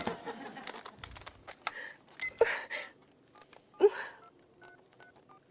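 A woman grunting and gasping as she strains under a heavy weight, followed by a string of about six short beeps from a telephone keypad as a number is dialed.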